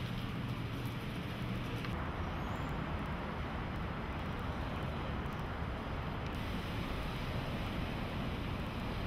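Steady urban background noise, a low rumble of distant city traffic, with no distinct events.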